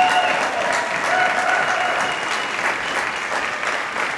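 Arena audience applauding at the end of a reining run, with a couple of long held cheers from the crowd in the first two seconds.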